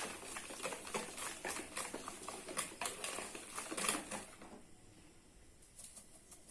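Semolina cake batter being beaten by hand in a bowl: rapid, irregular light clicks and taps of the utensil against the bowl, easing off about four and a half seconds in.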